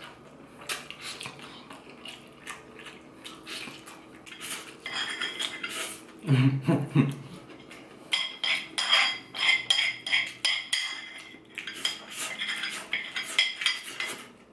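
A ceramic spoon scooping and clinking against a ceramic plate: many light clinks with a short ring, thickest in the second half. About halfway there is one short low hum.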